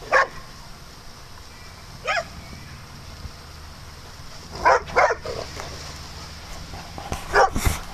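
Dogs barking at rough-and-tumble play: about six short, separate barks, with two close pairs in the middle and near the end.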